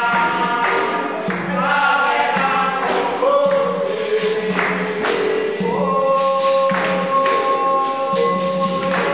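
Capoeira roda music: berimbaus, pandeiro and atabaque drum playing a steady rhythm, with a group singing held, sliding notes and the circle clapping along.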